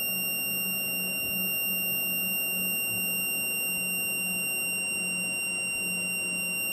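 Homebuilt 12-volt switching power supply under heavy load of over 100 amps: its cooling fans running with a steady high-pitched beep tone over them and a low hum that comes and goes. The beep, which started as the load was brought up, is one the builder chooses to ignore; the voltage is sagging under the load.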